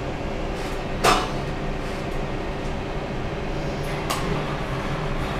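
Oval-port 496 big-block Chevrolet V8 idling steadily on an engine dyno, with two short sharp clicks, one about a second in and one about four seconds in.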